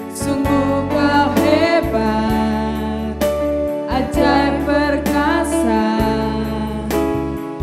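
Praise-and-worship song: singing over instrumental accompaniment, with sustained bass notes that change every second or two.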